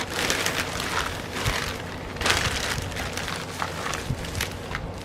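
Packaging crinkling and rustling as boxed paint-by-numbers kits and frames are handled, a dense run of small crackles.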